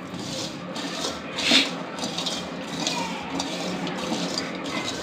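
Hand rubbing and squeezing a crumbly rava-and-besan laddu mixture in a stainless steel bowl, a continuous gritty rustle with the fingers scraping the steel. One louder scrape comes about a second and a half in.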